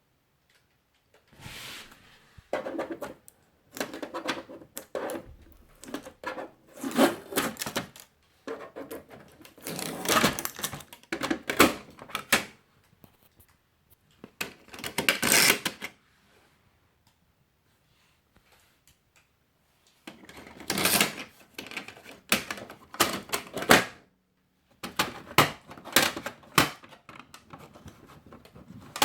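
Hands handling a laser printer and its packaging: irregular clatter of plastic clicks, knocks and rustling, in bursts with a few pauses.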